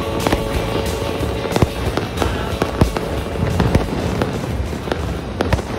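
A dense barrage of fireworks and firecrackers going off across a city: a constant rumble with sharp bangs and cracks several times a second, and music underneath.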